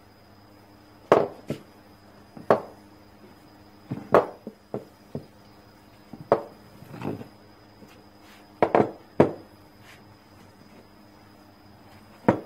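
Irregular knocks and clunks of a steel muffler tube and its parts handled against a wooden workbench while fiberglass cloth is packed into it, about a dozen sharp hits spread unevenly.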